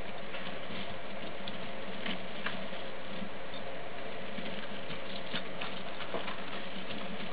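Young steppe lemmings scrambling over a metal wire exercise wheel and wood-pellet bedding: scattered small clicks and scratches of paws and claws, over a steady background hiss.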